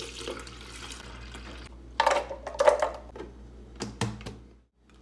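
Milk pouring from a carton into a plastic blender jar, then a few sharp knocks and clatters followed by clicks as the lid is pressed onto the jar.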